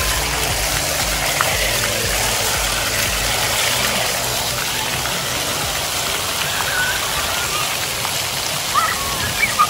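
Splash pad ground jets spraying water onto the wet pad surface: a steady hiss of spray and splatter.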